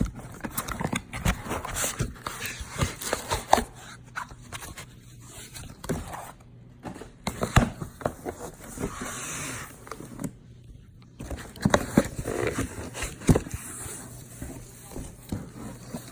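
Soundbar packaging and accessories being handled: plastic and paper rustling with many scattered clicks and knocks.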